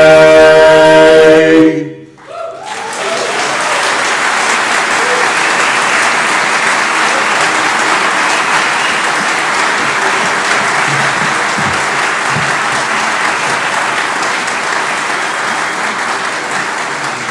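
An a cappella barbershop quartet of four male voices holds its final chord, which cuts off just under two seconds in. Audience applause follows right after and runs steadily on.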